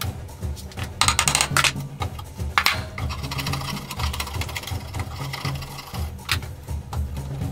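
A two-handled blade shaving wood from a hatchet handle in several scraping strokes, the longest in the middle, over background music with a steady beat.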